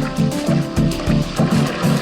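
Background music with a fast, steady beat, about four low notes a second.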